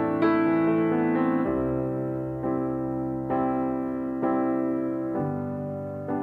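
Background piano music: slow sustained chords, a new one struck about once a second and left ringing.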